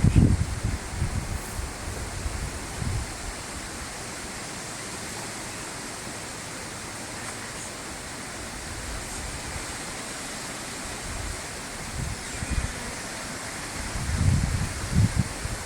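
Steady rushing outdoor noise, with wind buffeting the microphone in low rumbling gusts near the start and again about twelve to fifteen seconds in. No steady tone or trumpet-like call stands out.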